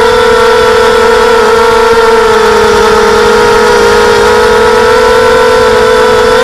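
Diatone mini quadcopter's brushless motors and propellers whining steadily in flight, holding one pitch that sags slightly about midway.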